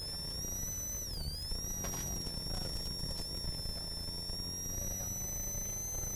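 Ford Sierra RS Cosworth's turbocharged 2.0-litre four-cylinder engine under way at rally speed, heard from inside the cabin, with a steady high whine over the engine note that dips briefly about a second in and recovers. A couple of sharp knocks about two seconds in.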